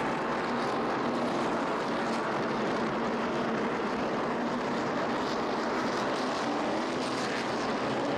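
A field of NASCAR Sprint Cup stock cars' V8 engines running on the track, blending into one steady din.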